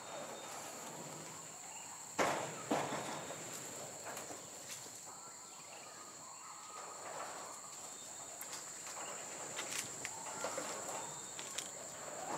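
Steady high-pitched drone of insects, with a couple of sharp knocks a little over two seconds in and a few faint ticks later.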